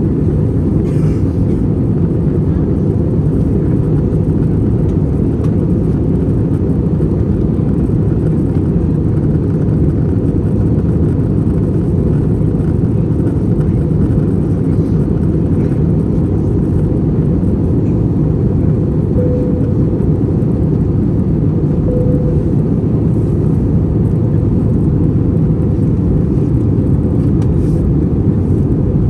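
Steady low rumble of airflow and IAE V2500 engines heard inside the cabin of an Airbus A321 in flight, unchanging throughout.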